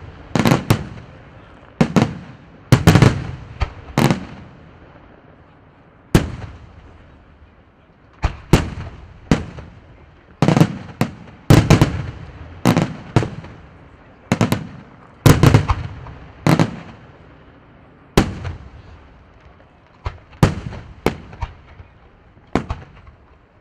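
Aerial fireworks shells bursting in a long irregular series of loud booms, some in quick clusters of two or three, each followed by an echoing rumble.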